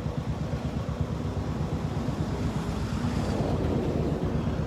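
Motorcycle engine running steadily, with wind noise on the microphone.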